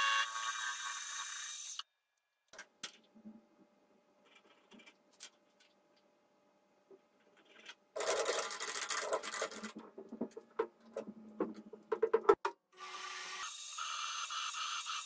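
Benchtop milling machine cutting steel with an end mill, which stops about two seconds in. After a quiet stretch with a few faint clicks, metal tools clatter and knock on the machine table, and near the end the mill starts drilling the part with a twist drill, running steadily.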